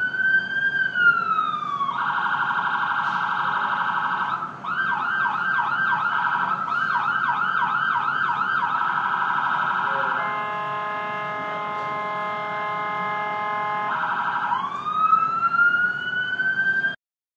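Ambulance siren cycling through its patterns: a slow wail, a fast warble, a yelp repeating about twice a second, then a steady blaring tone for about four seconds before rising into the wail again. It cuts off abruptly just before the end.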